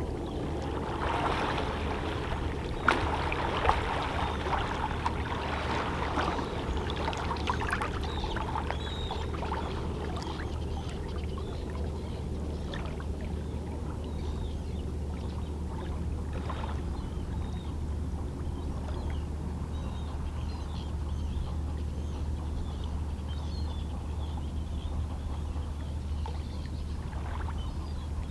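Small, calm sea waves lapping and splashing against shoreline rocks, busiest in the first several seconds with a couple of sharper slaps, then settling into a gentle trickling wash over a steady low rumble.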